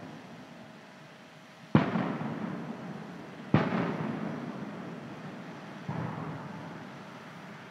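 Aerial firework shells bursting: three sharp booms about two seconds apart, each trailing off in a long echo. The first two are the loudest.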